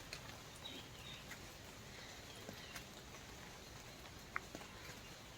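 Faint wet-garden ambience: scattered soft drips and ticks of falling rainwater over a low steady hiss, with a couple of short, high bird chirps.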